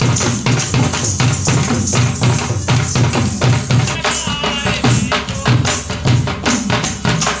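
Live drumming with a quick, steady beat of low drum strokes and jangling percussion on top. A short wavering high note sounds over it about four seconds in.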